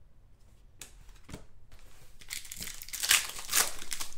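A couple of light clicks, then, about two seconds in, a trading-card pack's foil wrapper being torn open and crinkled in the hands, loudest about three seconds in.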